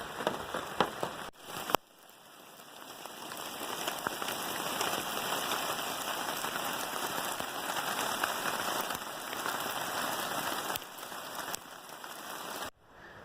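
Rain falling steadily: a few sharp drop ticks at first, then an even hiss of rain that builds over a couple of seconds and holds, breaking off abruptly near the end.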